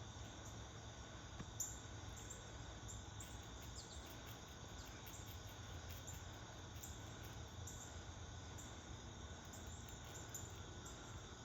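Faint, steady chirring of insects such as crickets over a low steady hum, with short high chirps here and there.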